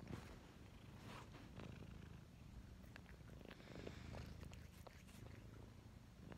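Domestic cat purring close to the microphone: a quiet, low, steady rumble, with a few faint ticks over it.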